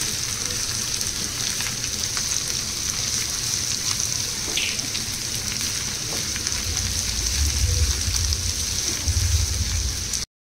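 Bitter gourd and thinly sliced onions sizzling in hot oil in a pan: a steady frying hiss with a few faint clicks. It cuts off suddenly near the end.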